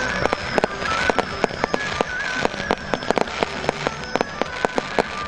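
Fireworks fired in quick succession, giving a rapid, irregular run of sharp bangs at about five a second as shells launch and burst.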